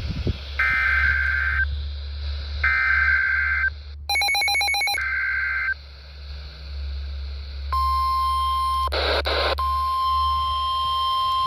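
Emergency Alert System header: three roughly one-second bursts of warbling digital data in a row, with a short run of rapid clicking pulses between the second and third. About eight seconds in, a loud, steady alert tone starts and holds, marking the start of a new warning.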